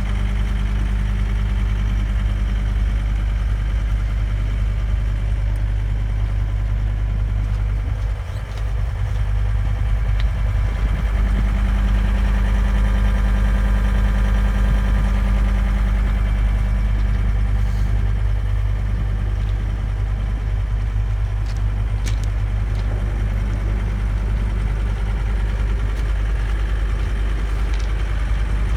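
A John Deere 329D skid steer's Yanmar turbo diesel engine running steadily. There is a brief dip about eight seconds in, then it runs a little louder for several seconds.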